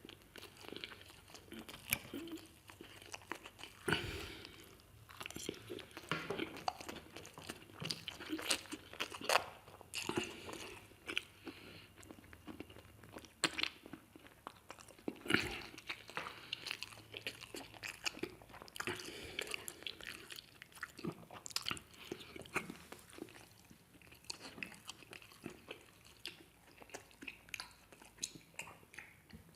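Close-miked eating: repeated crunchy bites and chewing of chicken and potatoes, with irregular sharp crackles throughout.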